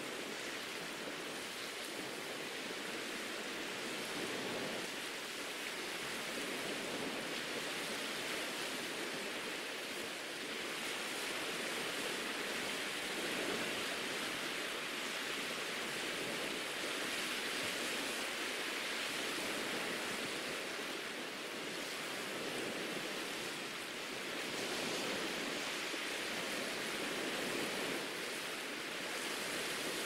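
Small, soft waves washing up a sandy beach and drawing back, a steady hiss of surf that swells gently every few seconds.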